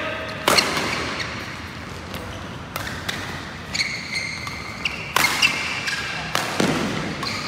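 Badminton doubles rally: sharp racket strikes on the shuttlecock, a second or two apart, with high shoe squeaks on the court floor between them. Each strike echoes in the hall.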